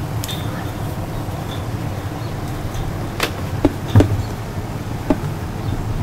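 Steady hum of a running electric window fan, with several sharp knocks and clicks from handling a vintage metal table fan, the loudest a little before two-thirds of the way through.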